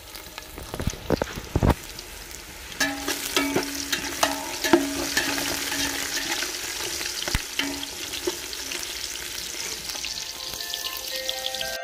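Sliced onion, garlic and bay leaves sizzling in hot oil in a metal pot, the sizzle growing louder about three seconds in. Sharp clicks and scrapes of stirring against the pot run through it.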